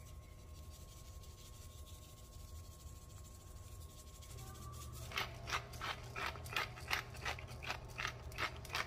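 Pepper grinder being twisted over fish fillets: a run of dry, ratchet-like grinding clicks, about three a second, starting about five seconds in after a quiet stretch.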